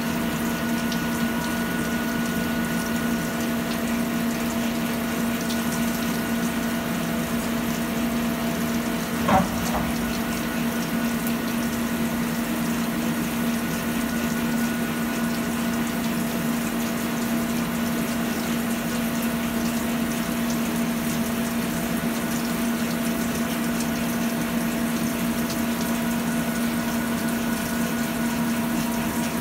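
CNC lathe taking a cut on a steel disc under flood coolant: a steady machine hum with a few fixed tones over the hiss of coolant spray. One sharp knock about nine seconds in.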